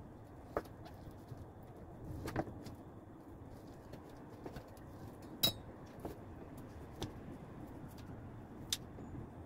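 Chef's knife slicing vegetables on a plastic cutting board: sparse, irregular knocks of the blade on the board a second or two apart, the sharpest about five and a half seconds in, over faint steady background noise.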